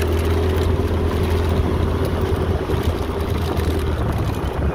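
Small motorcycle running at a steady riding speed, heard from the rider's seat: a steady low engine drone over road noise.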